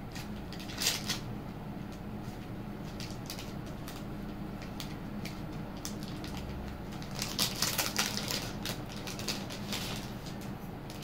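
Handmade bead jewellery being handled: scattered small clicks, clinks and rustles, a few about a second in and a busier run of them later, over a steady low hum.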